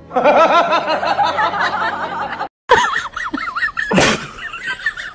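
A wavering, pulsing vocal sound for about two and a half seconds that cuts off abruptly. After a short gap comes a higher, wavering whine, with a sharp click about four seconds in.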